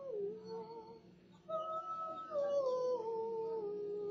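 A woman humming a slow tune in long held notes, breaking off briefly about a second in, then taking up a higher note that steps down in pitch.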